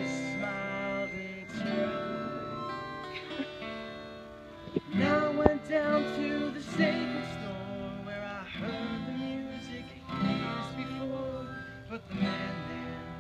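Acoustic guitar strummed, with accented chords recurring about every one and a half to two seconds, and some singing along. A single sharp knock sounds about five and a half seconds in.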